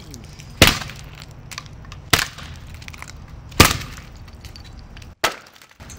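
Electric guitar smashed repeatedly against a concrete floor: four hard cracking impacts about a second and a half apart as the wooden body splinters.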